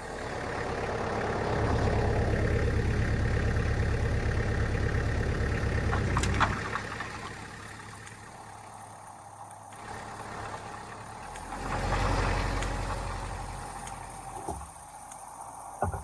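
Farm tractor engine running as the sawmill edger is started off its PTO. The engine grows loud for about five seconds, with a falling pitch early on, then eases off, and swells again briefly near the end.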